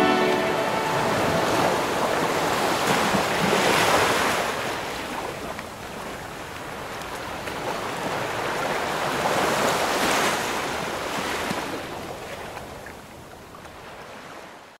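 Ocean surf: waves washing in and breaking, swelling twice, at about four and ten seconds in, then fading away near the end.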